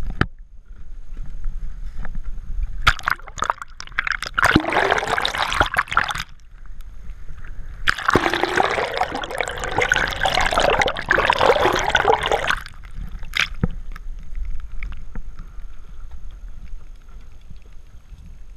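Two long bursts of water splashing and rushing, the second about four seconds long, over the steady low rumble of a fishing boat's engine.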